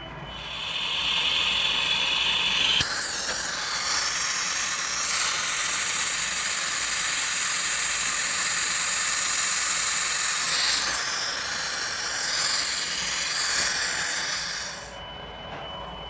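Compressed air hissing out in a steady rush for about fifteen seconds, shriller for the first few seconds, then cutting off about a second before the end.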